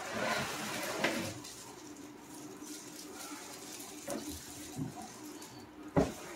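Large plastic bag rustling and crinkling as a bagged Litter-Robot unit is lifted out of its cardboard box, with a few light knocks and a sharp thump about six seconds in.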